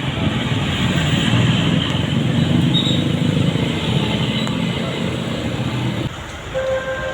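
A bus passing close by with a loud engine and road rumble, which drops away abruptly about six seconds in. Just before the end a basuri musical air horn starts, holding a steady note.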